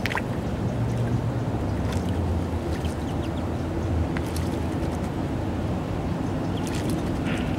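Shallow stream water running with a steady low rumble, and a few brief splashes from American robins bathing, one flapping its wings in the water at the start.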